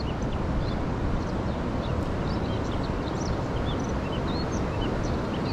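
Steady rushing of a swollen, fast-flowing river, with small birds chirping briefly and often over it.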